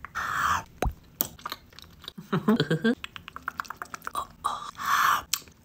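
Close-up eating sounds: wet mouth noises and chewing, a short hummed "mmm" a little over two seconds in, then a quick run of small crunchy clicks as passion fruit is eaten.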